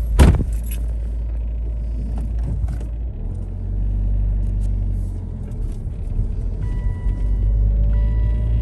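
Steady low rumble of a running motor vehicle, with a single sharp knock just after the start.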